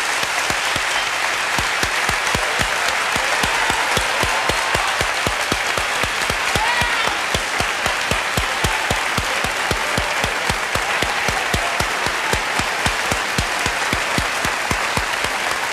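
Large audience applauding: sustained, dense clapping from a packed hall.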